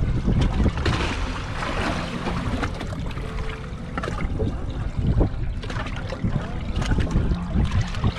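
Wind buffeting the microphone and water sloshing against a small boat's hull at sea, with a few short knocks.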